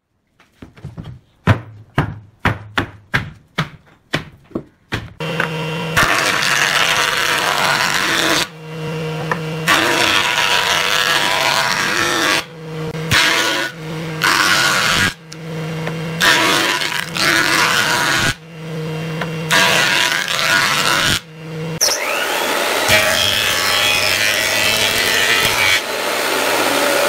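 About ten sharp knocks, roughly two a second, then woodworking planer cutters shaving boards in several clipped stretches, and near the end a thickness planer running steadily.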